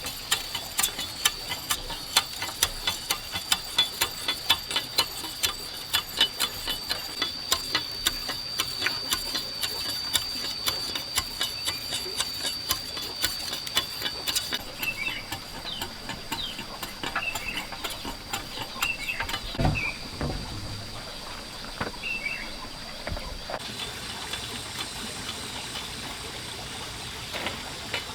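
Quick, regular clicking or tapping, about three to four a second, over a steady high whine. Both stop about halfway through, leaving scattered knocks and a few short high chirps.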